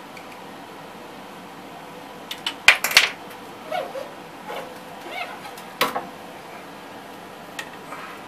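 Metal hand tools clattering down onto the CNC router's metal table, followed by the steel spindle scraping and knocking against its clamp as it is worked up and out. A faint steady hum underneath.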